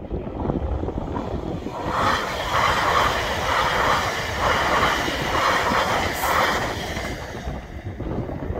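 Greater Anglia Class 720 electric multiple unit passing over a level crossing. Its rushing wheel and running noise builds about two seconds in, pulses roughly once a second as the wheels go by, and fades away near the end. Wind buffets the microphone throughout.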